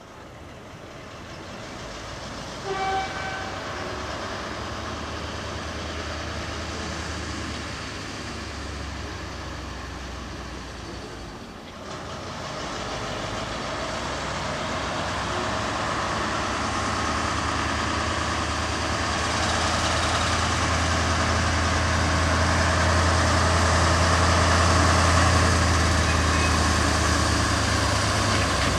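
British Railways Class 03 diesel shunter running as it approaches with a train of coaches, its engine note growing steadily louder. A short horn toot sounds about three seconds in.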